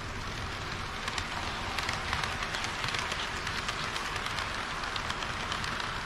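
HO-scale model trains running on sectional track: a steady rushing hiss of wheels on the rails with rapid fine clicking over the rail joints, growing louder about a second in as the trains come close.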